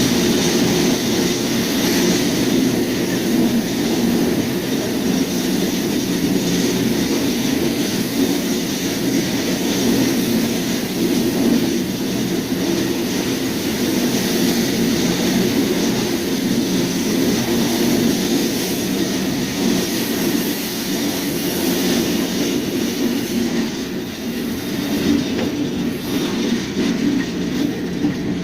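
Freight train rolling along the main line, heard from aboard a car: a steady, loud rumble and rattle of the wheels and cars.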